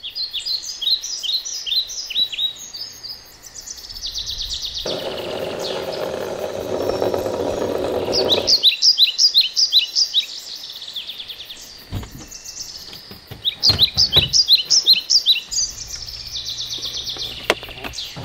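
A songbird singing phrases of quick, high, downslurred notes repeated in a rapid series, in three bursts of song several seconds apart. A low rushing noise swells for a few seconds in the middle, and a few soft knocks come in the second half.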